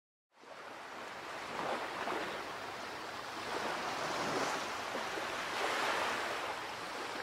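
Sea surf washing onto a sandy beach. The noise fades in just after the start, then swells and eases in slow waves every second or two.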